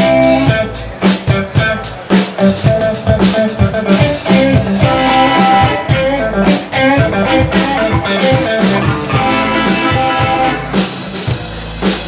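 Live blues band playing an instrumental break: electric guitar playing lead lines over a drum kit, with no singing.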